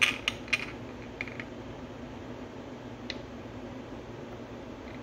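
A few light clicks and taps of a piston in a fitted ring compressor sleeve being handled and set onto a cylinder bore of an aluminium engine block, several in the first second and a half and one more about three seconds in, over a steady low hum.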